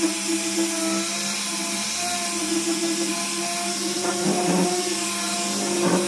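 Electric power tool's motor running steadily at a constant pitch, with a couple of brief rougher patches about four and six seconds in.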